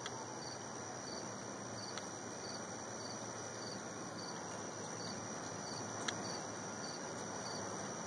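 Cricket chirping in an even rhythm of short high chirps, just under two a second, over a steady hiss, with a few faint clicks.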